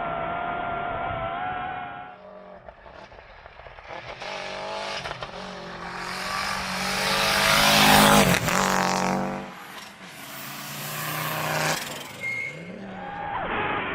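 Rally car engine at high revs as the car passes at speed, building to its loudest about eight seconds in and falling away, then a second loud burst of engine and tyre noise shortly after.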